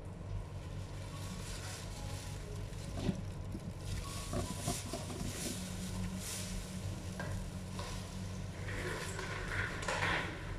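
Clear plastic haircut cape rustling and crinkling in irregular bursts, densest near the end, over a steady low hum.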